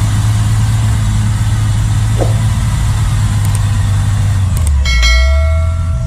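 Cargo truck's diesel engine running steadily, its note dropping lower about five seconds in. At the same moment a steady high tone sounds for about a second.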